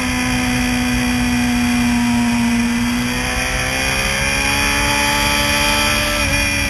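Sport motorcycle engine held at a steady pitch through a corner, then rising in pitch from about halfway through as the bike accelerates. Wind rushes over the onboard camera's microphone.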